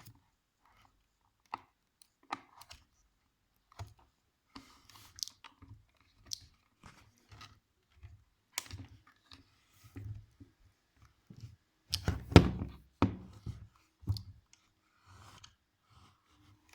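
Handling noises from unboxing a JBL speaker: scattered clicks, crunches and knocks, with a louder flurry of them about twelve seconds in.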